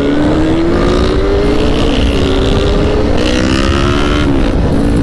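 Sport motorcycle engine accelerating hard, its pitch climbing and dropping back at an upshift about halfway through and again near the end, with wind noise on the microphone.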